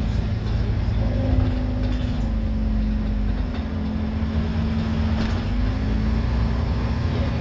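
Scania N230UD Enviro400 double-decker bus's five-cylinder diesel engine and drivetrain heard from the upper deck while the bus drives: a steady low drone whose engine note shifts up and down a few times, with faint rattles of the bodywork.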